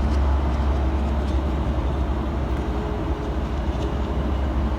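A steady low rumble with an even hiss of background noise over it, unchanging throughout, with a couple of faint ticks.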